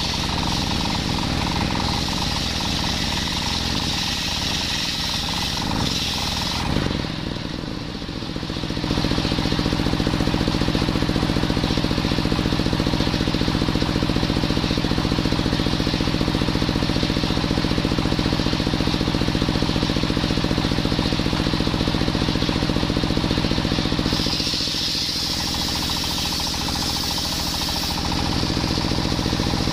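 Coconut wood being ripped on a table saw driven by a belt from a stationary engine. The blade whines high as it cuts a coconut plank. Then for about fifteen seconds the engine runs steadily with the blade spinning free, and in the last few seconds the high cutting whine returns as a coconut log is fed into the blade.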